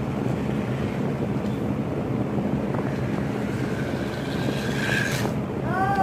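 Steady noise of a room fan, with a remote-control car's electric drive whining as it drives across the floor; the thin whine rises near the end and breaks into short pitch glides.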